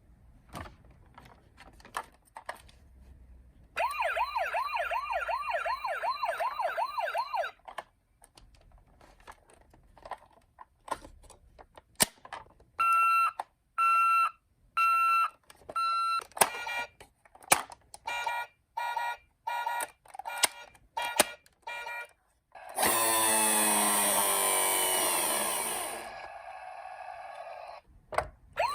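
Toy ambulance minicars playing electronic siren tones one after another. First a fast warbling siren, then a series of steady beeps, then a run of short tone pulses, and near the end a loud rapid warbling wail, with scattered clicks and knocks between them.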